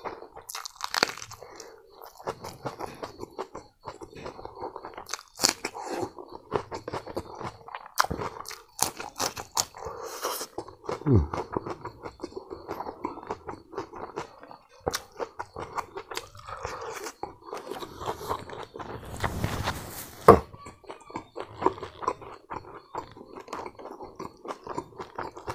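A man chewing a hand-fed mouthful of rice, omelette, dal and fried eri silkworm pupae close to the microphone: irregular wet chewing, crunches and lip smacks, with a couple of longer breathy sounds.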